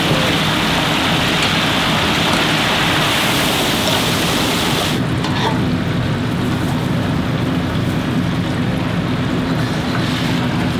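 Chicken deep-frying in oil, a loud, steady sizzle. About five seconds in, the highest part of the hiss drops away suddenly and the sizzle goes on lower.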